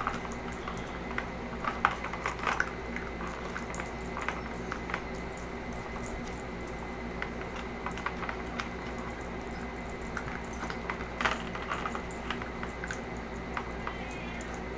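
A puppy working a plastic treat-puzzle board with her nose and paws: irregular light clicks and taps of the hard plastic pieces, with some wet, squishy noises from her mouth as she roots for the treats.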